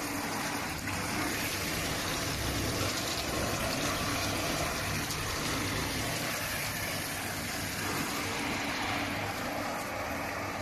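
Continuous potato-chip seasoning machine with an oil-spraying system running: a steady mechanical noise with a rushing hiss and a low hum.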